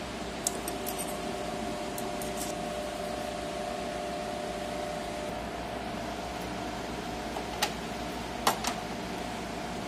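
Continuous inkjet printer running with a steady mechanical hum. A few sharp clicks and knocks come about half a second and two seconds in and again near the end as the tubing and fittings inside it are handled.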